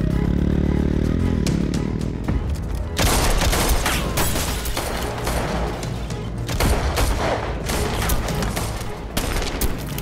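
A gunfight: a dense volley of pistol and rifle shots breaks out about three seconds in and goes on in irregular clusters, over dramatic score music. In the first two seconds a motorcycle engine slows down with a falling pitch.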